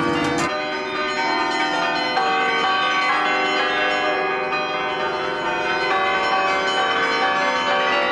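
A 48-bell carillon playing a fast tune, many overlapping bell notes ringing on into each other. The clatter of its wooden baton keys is heard briefly at the start.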